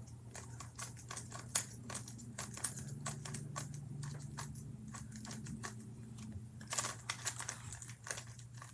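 Rubik's cube being turned by hand, its plastic layers clicking and clacking irregularly as they are worked, freshly lubricated with petroleum jelly.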